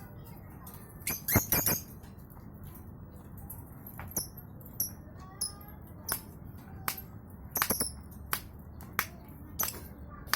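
Lovebird giving short, sharp, shrill chirps: a quick cluster about a second in, then single chirps roughly every half second to a second.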